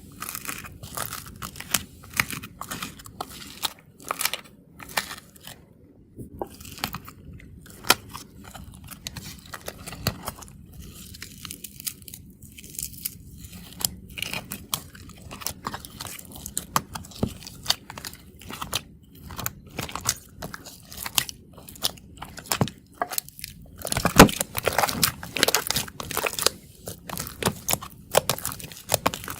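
Iceberg slime's hardened top crust crunching and crackling as it is worked and broken up, in irregular runs of sharp crackles that grow densest and loudest near the end.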